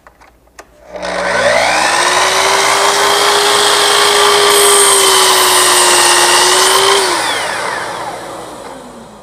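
Festool Kapex sliding compound miter saw: a few light clicks, then about a second in the motor starts, its whine rising to full speed and holding steady. Midway the blade cuts through a wooden workpiece with a harsher hiss. The trigger is then released and the motor winds down with a falling whine near the end.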